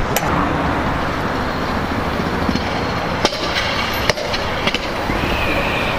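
Trick scooter wheels rolling over stone paving tiles, with a few sharp clacks in the second half.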